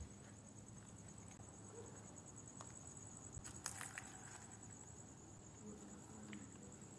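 Faint, steady high chirring of crickets, with a short sharp click about three and a half seconds in.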